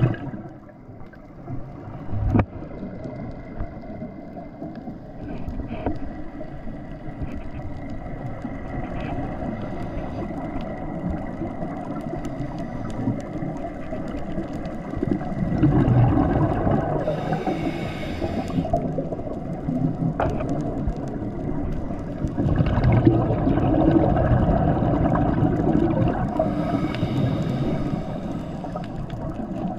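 Scuba regulator breathing heard underwater through the camera housing: a steady rushing murmur, swelling into two longer bubbling bursts of exhaled air about halfway through and again a few seconds later. A single sharp knock comes about two seconds in.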